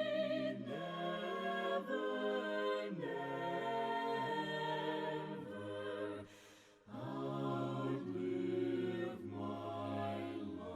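Unaccompanied voices in harmony, a choir singing a cappella, holding long chords that shift every second or two, with a short pause for breath about six seconds in.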